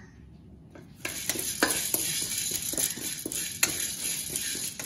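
Wooden spatula stirring chana dal as it dry-roasts in a coated kadai, the dal scraping and rattling against the hot pan. The steady hiss of stirring starts about a second in, with sharp clicks of grains and spatula on the metal scattered through it.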